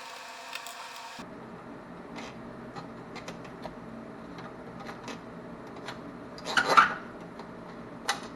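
Small clicks, taps and rubbing of hand tools and plastic and metal parts as an Xbox One S console's front controller-module board is being removed, with a louder scrape about six and a half seconds in. A steady hum cuts off suddenly about a second in.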